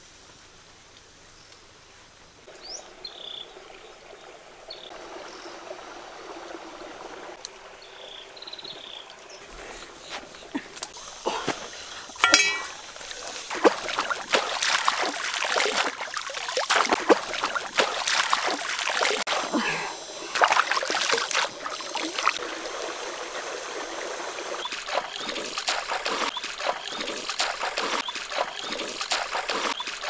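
Shallow stream water being splashed and stirred by hands, a steady trickle under irregular splashes that start about a third of the way in and grow denser and louder. The quieter opening carries a few short high chirps.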